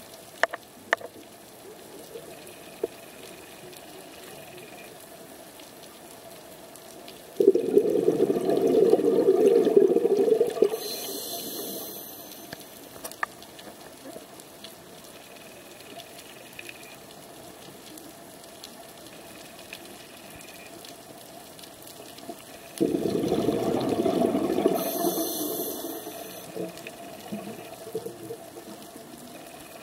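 Underwater sound of a scuba diver breathing through a regulator. There are two long bursts of exhaled bubbles, one about 8 s in and one about 23 s in, each lasting around three seconds. Between them is a steady low hiss with a few small clicks.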